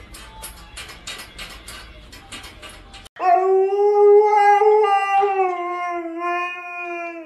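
Quick metallic clicking and rattling from a bear working at a padlock on its cage bars. About three seconds in, a husky lets out one long howl that dips slightly in pitch near the end.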